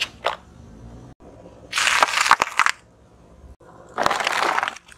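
A car tyre rolling slowly over small packaging and crushing it in three separate crackling crunches. The first, just after the start, is brief. The second, near the middle, lasts about a second. The third comes about four seconds in, as the tyre flattens a row of small cardboard boxes.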